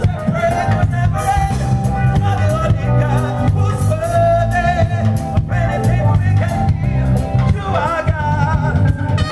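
Live band playing: drum kit, bass guitar, lead guitar and piano, with singing over it.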